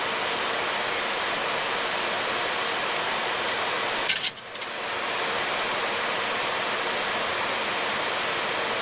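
Steady rushing hiss of airflow and background noise in a Boeing 737 cockpit on short final. About four seconds in, a short click comes and the noise briefly drops before it returns to the same level.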